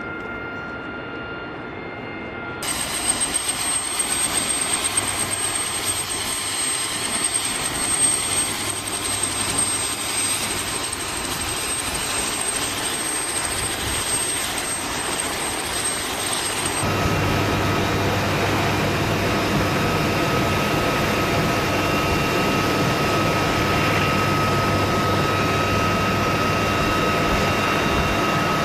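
UH-1Y Venom helicopter's twin turboshaft engines and main rotor running, a steady whine with rotor noise. It starts quieter, jumps in level a few seconds in, and from a little past halfway it is louder and steadier.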